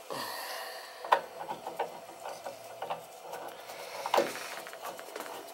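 Wrench working a threaded steel gas pipe fitting at a water heater's gas control valve: a short scraping rush at the start, then irregular sharp metal clicks and clinks, the loudest about a second in and again about four seconds in.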